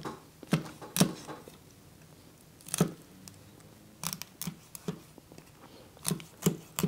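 Kitchen knife cutting through a whole rainbow trout to open it up, giving a series of short, crisp clicks and snips, about ten spread irregularly.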